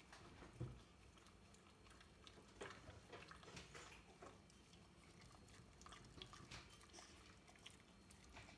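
A whippet licking and chewing sticky peanut butter: faint, irregular wet smacks and tongue clicks, with a soft low bump about half a second in.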